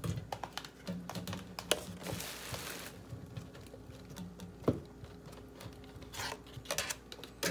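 Blackberries being dropped by hand from a plastic clamshell into a plastic blender cup: scattered light taps and clicks with a stretch of plastic crinkling, and one sharper knock about two-thirds of the way through.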